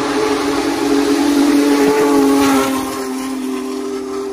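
Union Pacific Big Boy No. 4014 steam locomotive's whistle blowing one long chord of several steady notes over a hiss as the engine passes close by. The blast eases slightly about three seconds in.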